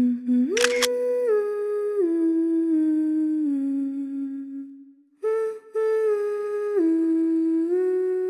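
A voice humming a slow melody, each note held for about half a second to a second and stepping down in pitch before moving up and down again, with a short break about five seconds in. A couple of sharp clicks sound under a second in.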